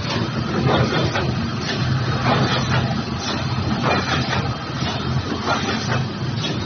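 Semi-automatic two-piece carton folder gluer running with other factory machinery: a steady mechanical hum with scattered light clatter.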